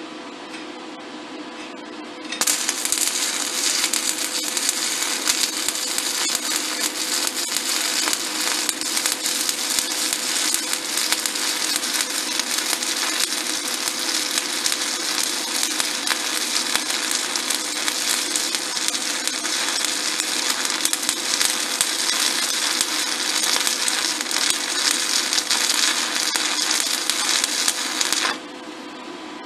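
Stick-welding arc of a 1/8-inch E7018 electrode at about 90 amps on a SanRex SanStick 160S inverter. It strikes cleanly about two seconds in, burns with a steady crackling hiss for about 26 seconds, and stops abruptly near the end: a very smooth start and a very smooth arc. A steady hum runs underneath throughout.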